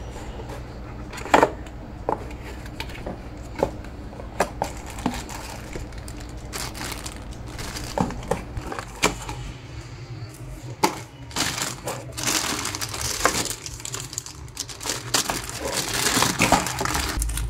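Unboxing handling: a cardboard box and its contents are knocked and tapped with scattered sharp clicks, then a clear plastic accessory bag crinkles as it is handled and opened, most densely in the last few seconds.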